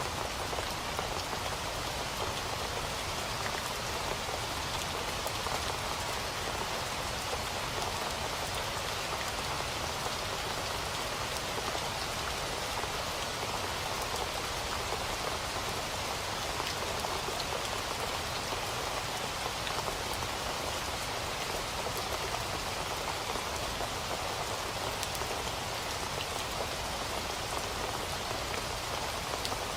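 Steady rain falling and pattering on surfaces, with many small drop ticks and no letup.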